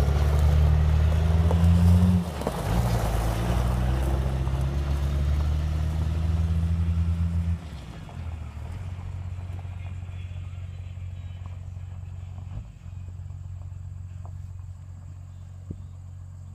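A 12-valve Cummins diesel in a 1994 Dodge pickup, running loud and close with a deep, even engine note that shifts pitch about two seconds in. About seven and a half seconds in the level drops suddenly, leaving a quieter, steady engine hum with the truck far off.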